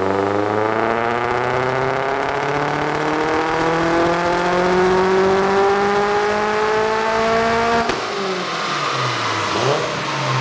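Subaru WRX's turbocharged flat-four making a full-throttle pull on a chassis dyno, the revs climbing steadily for about eight seconds. Near the end the throttle closes suddenly and the revs drop away, with a few quick rises and falls.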